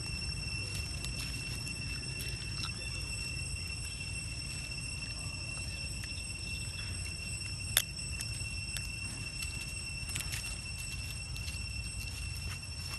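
Scattered light crackles and rustles of dry leaf litter as macaques shift about, with one sharp click about eight seconds in, over a steady high-pitched whine and a low rumble.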